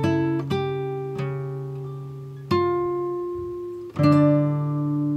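Background music of slow plucked guitar notes, each ringing out and fading before the next.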